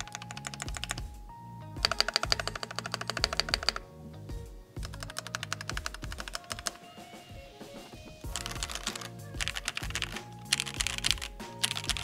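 Typing on a gasket-mounted Keychron V1 Max 75% mechanical keyboard with a PET film and Poron foam inside, in several fast bursts of keystrokes with short pauses. The typing sound is sharp and ringing but a little hollow, which the reviewer puts down to the PET film.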